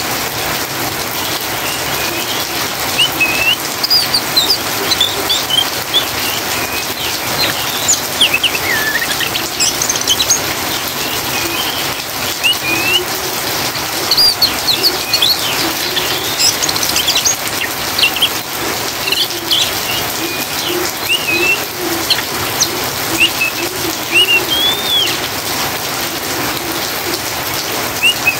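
Steady rain hiss with an oriental magpie-robin's quick, scattered twittering chirps ("ngriwik") repeated throughout.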